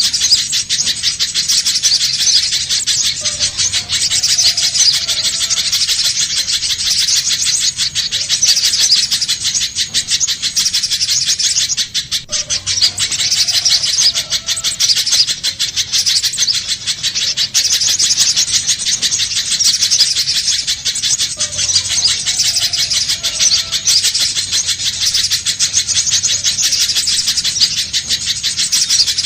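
Little spiderhunter singing a rapid, continuous stream of high-pitched notes, briefly breaking off about twelve seconds in. This is a bird-lure recording used to draw in or train spiderhunters.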